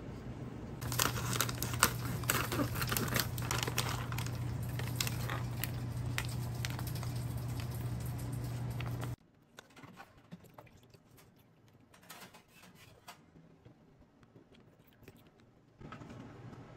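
Plastic broth pouch crinkling and rustling as it is handled, with many crackly clicks over a steady low hum. About nine seconds in it cuts off to a much quieter stretch with only a few faint clicks.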